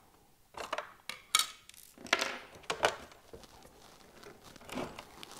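Sharp plastic clicks, knocks and rattling as the battery compartment on the underside of an RC model truck is opened: the screw-secured, quick-release latched cover is taken off and laid down. The loudest knocks fall about a second and a half and two seconds in, with a few softer clicks after.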